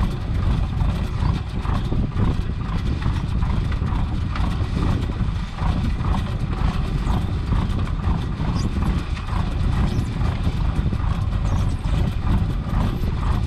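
A fishing boat's engine running steadily with a low rumble, under irregular knocking and clattering as a gillnet is hauled aboard by hand.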